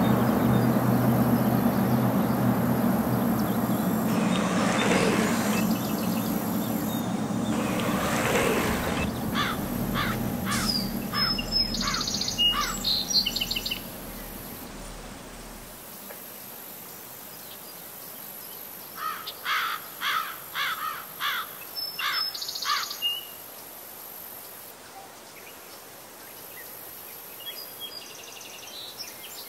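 Birds singing outdoors in repeated phrases of short sharp notes with higher chirps, in three spells. A low steady rumble runs under the first half and fades out about halfway through.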